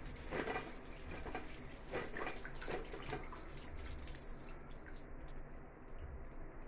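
Water spraying from an electric shower head as the flow is turned off: the spray's hiss thins into scattered splashing drips and fades about five seconds in, leaving isolated drops.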